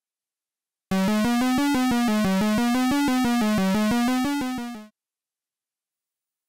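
Rapid, evenly pulsing 8-bit-style synthesizer tone, about eight pulses a second at a low pitch that wavers slightly. It starts about a second in and fades out after about four seconds, with silence before and after.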